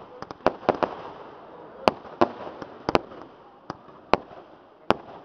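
Fireworks display: about a dozen sharp bangs of exploding firecrackers and shells at irregular intervals, with a steady crackling hiss of burning fireworks between them.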